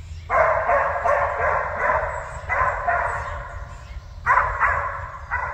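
Deer-hunting dogs baying: a long run of drawn-out bays, then two shorter bays near the end, the cry of hounds on a deer's trail.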